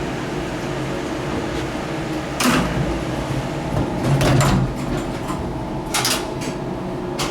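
Gateway Arch tram capsule doors closing, with several clunks and rattles, the loudest a heavy thud about four seconds in, over the steady hum of the tram machinery.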